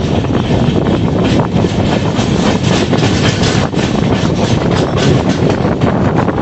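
Moving passenger train heard from on board: a steady rumble and rattle of wheels on the track with many small clicks, and wind buffeting the microphone.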